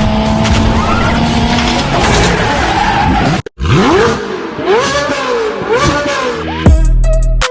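Car racing sound effects: a car engine running with tyres skidding and squealing in rising-and-falling arcs, cut off for a moment about halfway through. Near the end a falling sweep leads into a music beat.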